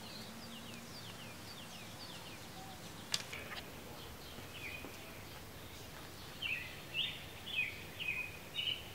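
Birds singing: a run of short falling chirps at first, then repeated bursts of chirping from about six seconds in. A single sharp click comes about three seconds in.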